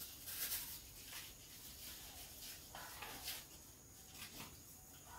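A quiet room with a few faint, short rustles of paper slips and plastic bags being handled.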